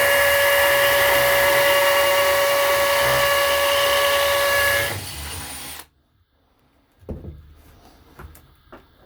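Power drill with a tungsten carbide masonry bit, drilling through a wooden board into brick: the motor runs at a steady whine, then stops about five seconds in and spins down. A few light knocks follow near the end.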